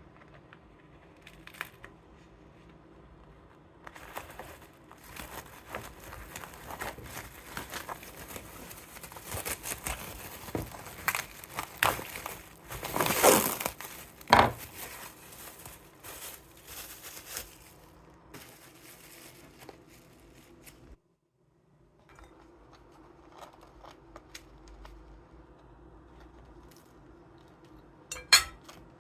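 Close household handling sounds: crinkling and rustling with many scattered clicks and clinks, loudest around the middle. The sound drops out abruptly, then quieter handling resumes with one sharp knock near the end.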